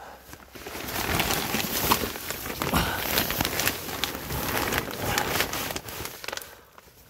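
Plastic vapor barrier sheeting crinkling and crackling as a person crawls over it, a dense rustle of small clicks that fades out near the end.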